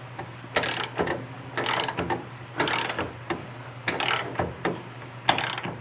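Hand ratchet wrench clicking through short strokes on a subframe connector bolt, about five strokes roughly a second apart.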